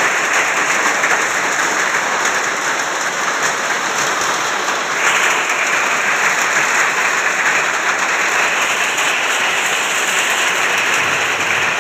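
Hailstorm: hail and heavy rain pelting down on bare ground, a steady dense hiss.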